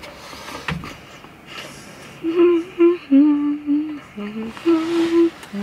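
A woman humming a short tune with her mouth closed: a string of held notes at a few different pitches, starting about two seconds in.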